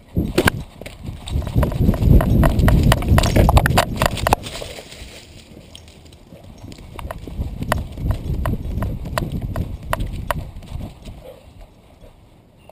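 A dog running with a camera harnessed to its back. Its galloping strides jolt the mount in a rhythm of heavy thumps, with rubbing and sharp clicks. The sound is loudest in the first four seconds, eases off, then picks up again from about six to eleven seconds in.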